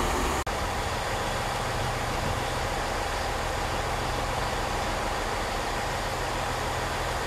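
A train's engine running steadily, a low even hum under a wash of noise, with a brief break in the sound about half a second in.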